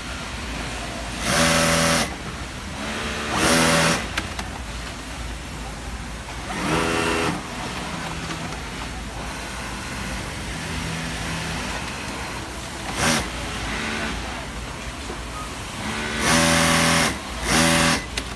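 Juki industrial sewing machine stitching disposable gown fabric in short runs: about six bursts, each from a fraction of a second to about a second long, each at a steady pitch. Between them, a steady factory background noise.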